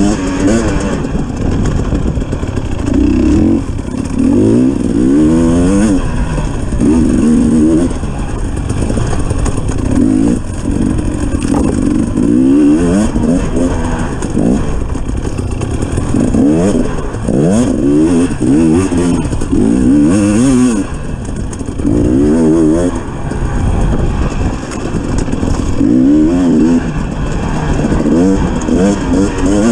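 250 cc dirt bike engine revving up and down over and over, its pitch rising and falling every second or two as the rider works the throttle along a rocky single-track trail.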